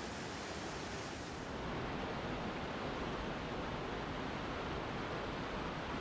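Rushing whitewater of a mountain river running high and fast, a steady roar and hiss of water over rocks. About two seconds in, the sharpest hiss drops away and the sound grows a little fuller.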